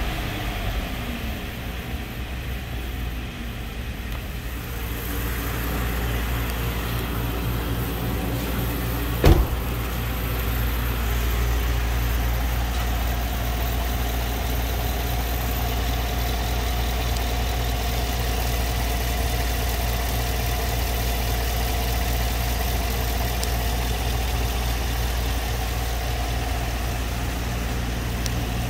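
2015 GMC Sierra 1500's 5.3L V8 engine coming down from a rev and then idling steadily. One sharp knock about nine seconds in.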